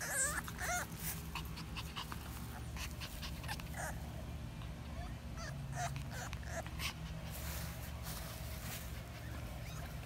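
French bulldog puppy whimpering in short high cries, a quick cluster at the start and a few more scattered through, over a steady low hum.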